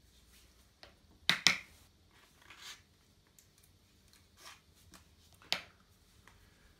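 Quiet handling noises of a plastic tub lid and aquarium air tubing being worked through a hole in the lid: two sharp clicks about a second and a half in, a few soft rubs and scrapes, and another click near the end.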